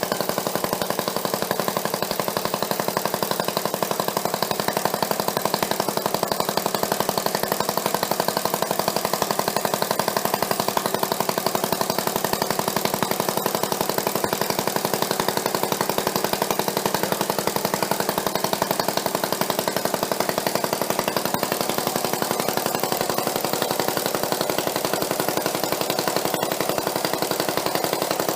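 Homemade engine built from a Quincy air compressor, running steadily with a fast, even beat.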